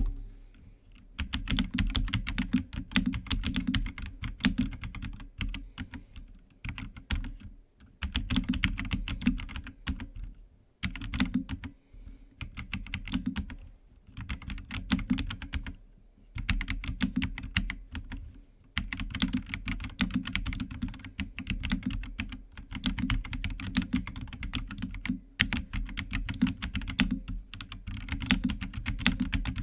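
Keychron C3 Pro mechanical keyboard with Gateron red linear switches being typed on: fast runs of key clacks broken by short pauses every few seconds.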